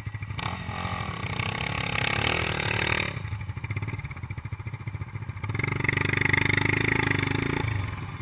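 Off-road ATV engines idling with a fast, even putter. The engine is revved up twice: from about half a second in for a couple of seconds, and again from about five and a half seconds until shortly before the end.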